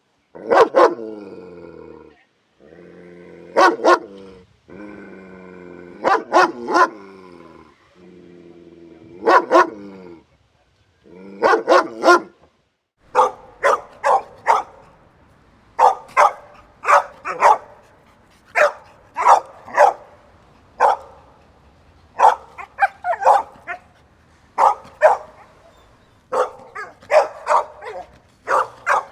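Dog barking: for the first half, sharp barks in spaced bouts of two or three, each bout over a long held note; then, about halfway through, a different recording of a dog barking quickly and repeatedly over a low background hiss.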